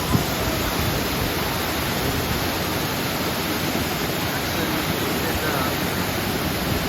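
Roar of Blackwater Falls: water pouring over the falls makes a steady, even rushing hiss.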